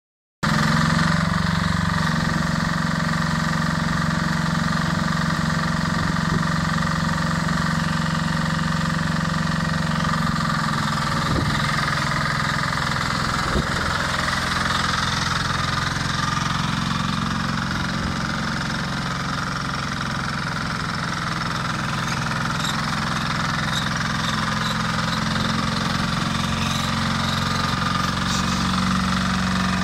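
Engine of a ride-on Bobman cubicle bedder running steadily as the machine drives along, with a steady higher-pitched whine alongside the engine note.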